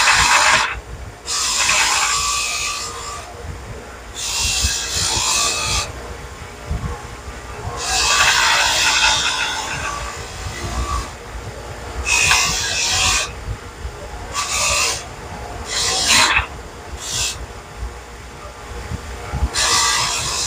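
Bench-grinder wire wheel scraping small steel parts clean in repeated passes of one to two seconds each, over the grinder motor running steadily. The parts are being stripped bare in preparation for cadmium plating.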